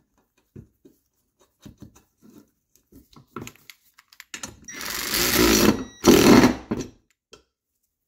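Cordless ratchet running in two bursts of about a second each, tightening a bolt on a steel winch mounting plate, the first burst with a thin motor whine. Before it, a few light metallic clicks of bolts and washers being handled.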